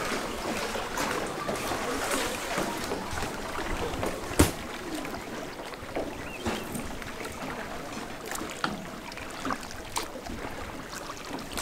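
Small wooden rowboat under way, its oars knocking in their locks and against the hull, with water lapping. A sharp knock about four seconds in is the loudest sound.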